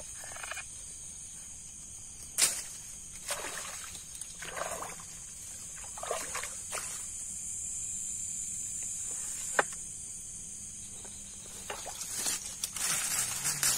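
Steady high-pitched chorus of night insects, with irregular sloshes and splashes of swamp water and a couple of sharp clicks.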